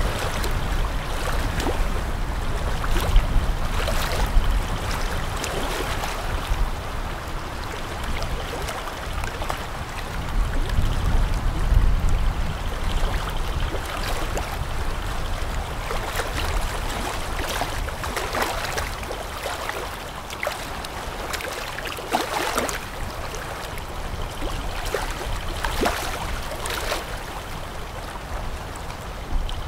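River water splashing and lapping, with many irregular small splashes over a low rumble that swells twice.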